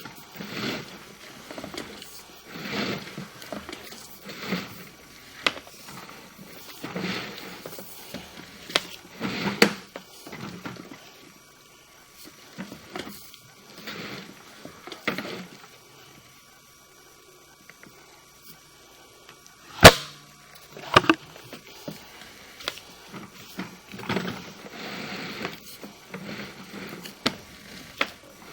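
Repeated short scraping and rubbing noises, one every second or two, with two sharp clicks about two-thirds of the way through: a sewer camera's push cable being fed by hand through the cleanout.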